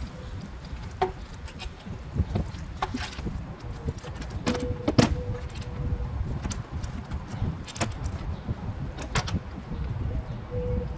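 Scattered metallic clinks and knocks, about five or six over several seconds, as tools and engine parts are handled during intake plenum removal, over a steady low background rumble.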